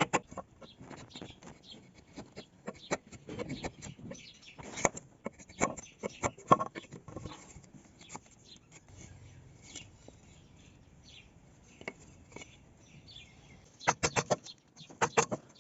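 Irregular sharp knocks and taps of hand woodworking on timber, with a quick run of several knocks near the end. Small birds chirp faintly in the background.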